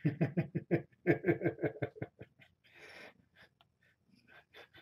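A man laughing: a quick run of short, falling "ha" pulses for about two seconds, a breath in, then a few more near the end.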